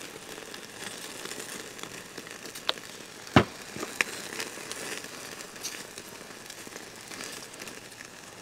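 Sauce-glazed gar fillets sizzling and crackling on a wire grill over a portable gas stove's flame. A few sharp clicks stand out, the loudest about three and a half seconds in.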